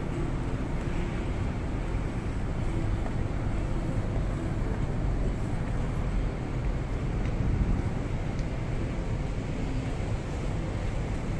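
Steady outdoor urban background noise, heaviest in the low end, with no distinct event standing out.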